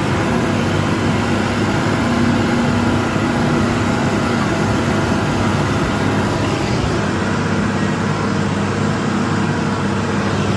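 Tractor's diesel engine running steadily at an even pitch, with no change in speed or load.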